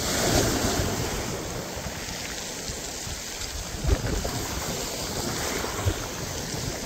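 Sea waves washing in, with wind rushing on the microphone; the surf swells up just after the start, and two short knocks come later on.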